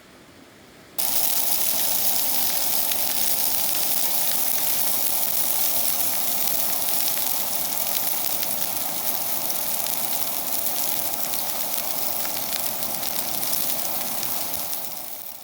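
A loud, steady hiss with no pitch to it starts suddenly about a second in, holds evenly, then fades out near the end.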